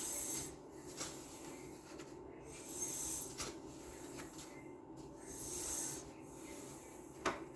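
Soft rubbing and rustling of paper being handled, in several slow swishes with a few light taps between them.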